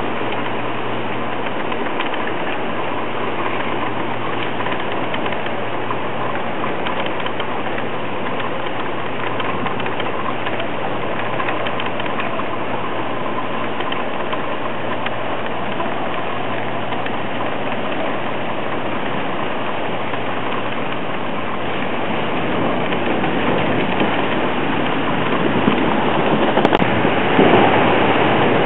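Hurricane rain and wind, a steady rushing noise that grows louder near the end.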